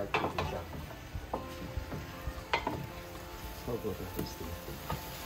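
A spoon stirring and tossing chunks of boiled root vegetables frying in a large metal pot, with a few sharp knocks and scrapes of the spoon against the pot over the frying.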